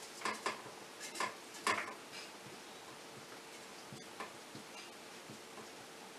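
Dry-erase marker squeaking and scratching on a whiteboard in short strokes while letters are written. The strokes are most distinct in the first two seconds, then only faint ticks.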